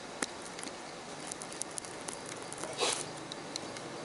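Soldering iron tip melting and scraping through hardened, charred glue on a TV speaker's cone near the voice-coil lead, giving faint scattered crackles and ticks over a steady hiss. A brief, louder scrape comes about three seconds in.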